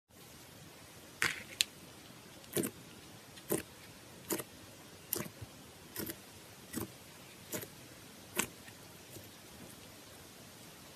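Clear slime being worked by hand, making a run of about nine sharp, crisp pops roughly a second apart, then only faint ones near the end.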